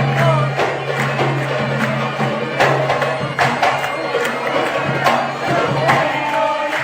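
Arabic wedding zaffa music: singing over regular drumbeats, with a steady low drone underneath.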